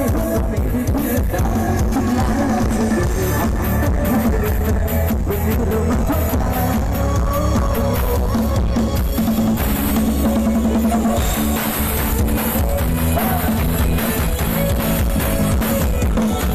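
Loud dance music with a heavy bass drum and drum kit beat, blasting from a rot hae parade truck's large sound system, picked up by a phone's microphone close to the truck.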